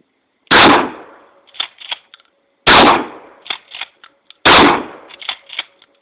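Three gunshots fired about two seconds apart, each very loud and trailing off quickly, with a few fainter sharp cracks after each one.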